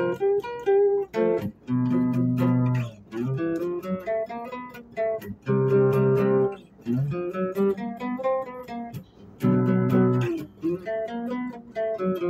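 Acoustic guitar music: chords strummed one after another, each ringing briefly before the next.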